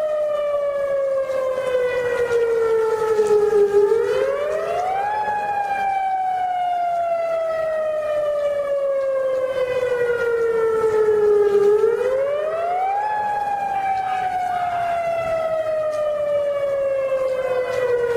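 Emergency warning siren wailing. Its pitch climbs quickly over about a second, then slides slowly down over six or seven seconds, and this repeats about every eight seconds, with a new climb starting near the end.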